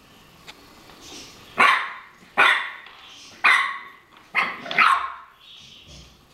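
A French bulldog barking, excited by a new ball: five sharp barks spread over about three seconds, the last two close together.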